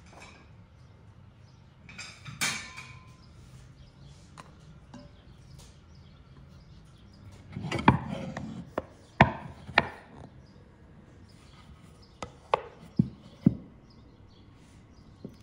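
Turned wooden bowls and wooden plates being handled and set against each other: a short clatter about two seconds in, a burst of knocking a little after the middle, then several sharp single wooden knocks.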